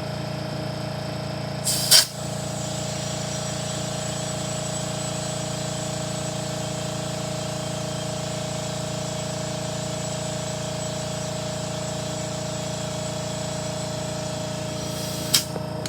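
Air compressor running steadily as it pumps up a low front tire toward 33 psi after a plug repair. A brief loud burst of noise comes about two seconds in, and another near the end.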